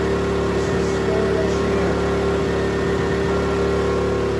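Powerhorse 2000 inverter generator running steadily on propane through a freshly fitted conversion kit, its small engine holding an even speed.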